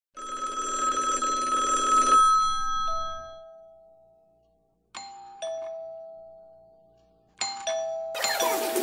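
A ding-dong chime: a ringing opening chord, then two-note high–low chimes that sound twice, each note ringing and fading away. About eight seconds in, busy background noise from a street food stall starts up.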